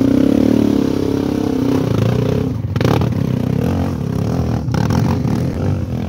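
Dirt bike engine revving hard and unevenly as the bike climbs over rocks, its pitch rising and falling. There are two brief breaks in the sound.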